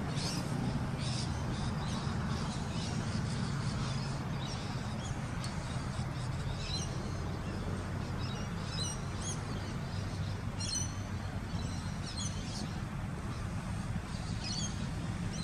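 Birds chirping in short, scattered calls over a steady low drone.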